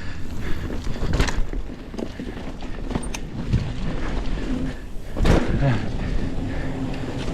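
Mountain bike rolling along a dirt and sand trail: steady tyre and frame rattle, with two harder jolting clatters, about a second in and about five seconds in.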